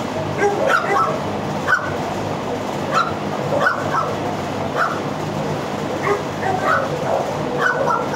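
Several dogs barking and yipping at once in a shelter kennel, short overlapping barks coming every half second or so over a continuous din.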